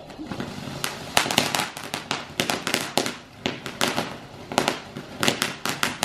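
Ground firework fountain spraying sparks: a steady hiss with rapid, irregular crackling pops, the first loud ones about a second in.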